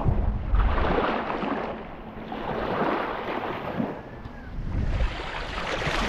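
Small sea waves washing up over a stone slipway and shingle, close by, swelling and falling back about three times. Wind rumbles on the microphone.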